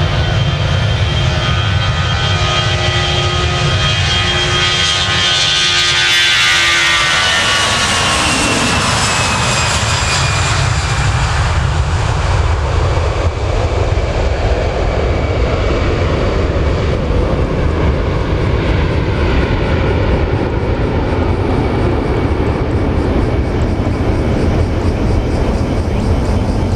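Airbus A320-200 jet airliner at takeoff power, rolling past and climbing away. The whine of its twin jet engines falls in pitch as it goes by, about six to ten seconds in, leaving a steady low rumble.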